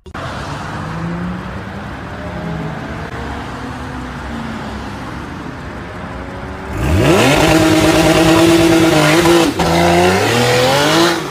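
Porsche 911's flat-six engine running at low revs, then about seven seconds in the throttle is opened hard: the revs climb steeply and hold high and loud, dip briefly near ten seconds, and drop away just before the end.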